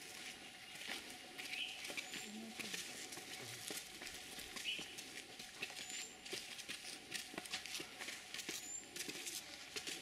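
Irregular footsteps and scuffs of several people climbing stone steps, with scattered sharp clicks.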